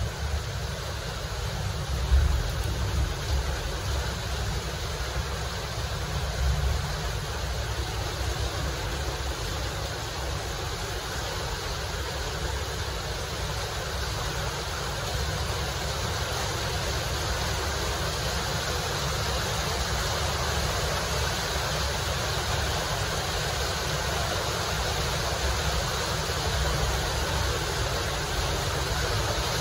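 A steady rushing hiss with a low rumble beneath it and a brief louder bump about two seconds in.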